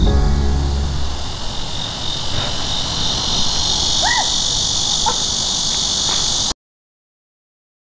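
Steady, high-pitched insect chorus, with the tail of background music in the first second and two short chirps about four and five seconds in. The sound cuts off abruptly to silence about six and a half seconds in.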